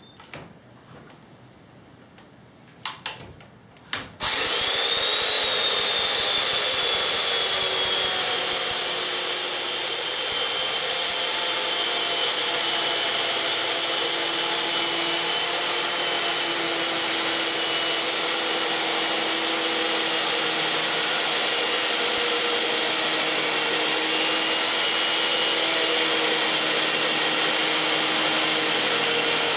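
Electric chainsaw mortiser cutting a mortise into a large cedar timber. After a few clicks, the motor starts about four seconds in with a short rising whine, then runs steadily as the chain cuts down into the wood.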